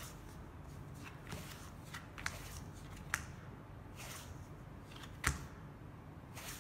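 Playing cards being drawn one at a time from a clear plastic baccarat card shoe and laid onto a felt table while dealing a hand: several short sharp card snaps and brief sliding hisses, the loudest snap about five seconds in.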